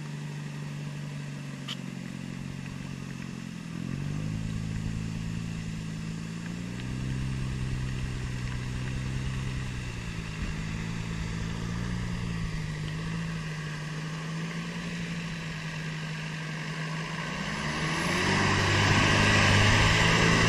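Off-road vehicle engine revving up and down as a 4x4 works its way up a muddy track. Near the end a second engine grows much louder, with a rush of noise, as another off-roader passes close by.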